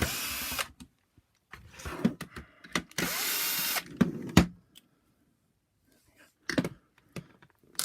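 Electric screwdriver running in two short bursts about three seconds apart, undoing the screws that hold the vacuum floor head's end cap, with plastic clicks and handling knocks between.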